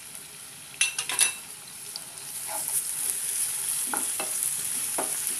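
Onions, tomatoes and ginger-garlic paste frying in oil in a non-stick kadai while a wooden spatula stirs them. A few sharp knocks come about a second in, then the sizzle grows louder as the mixture is worked around the pan.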